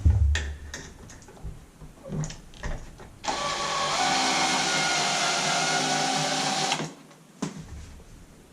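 A few handling clicks and knocks, then a power drill runs steadily for about three and a half seconds and stops, driving in a screw that mounts the new dimmer switch in its wall box.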